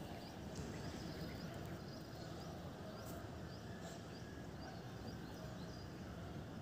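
Faint steady background noise with short, faint high chirps repeating every half second or so.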